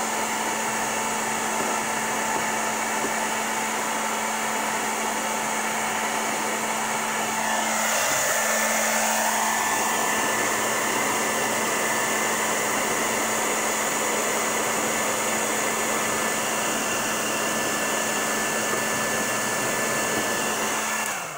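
Handheld hair dryer running steadily, a rush of air over a low motor hum, as it heats a price sticker on a toy box to soften the glue. About eight seconds in its tone shifts and it grows slightly louder as it is moved, and it cuts off right at the end.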